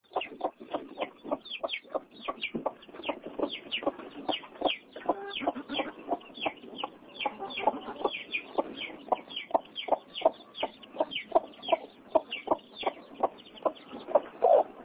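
Newly hatched Delaware chicks peeping, a steady stream of short, sharp calls several a second, with a broody hen clucking low among them.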